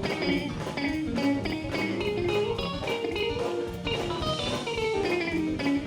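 Electric guitar solo over a live blues band's backing, playing quick runs of single notes.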